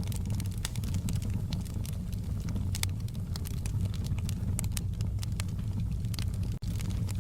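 Wood fire crackling: irregular sharp pops and snaps over a steady low rumble, with a split-second dropout near the end.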